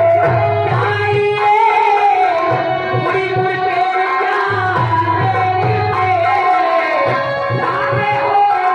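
Live Bhojpuri nautanki stage music: a hand drum beating a steady rhythm under a wavering melodic lead, with the drum dropping out briefly about four seconds in.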